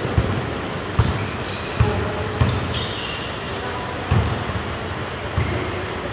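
Basketball bouncing on a hard court floor, with half a dozen irregular thuds over a steady background din and short high sneaker squeaks in between.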